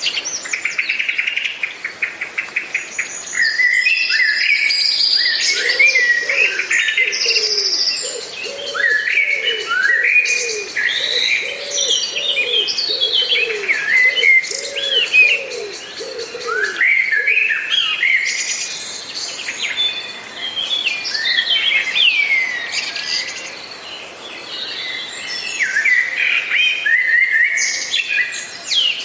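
Several birds singing at once, a dense mix of chirps, trills and sliding whistles. For about ten seconds in the middle, a lower call repeats steadily, about one note a second.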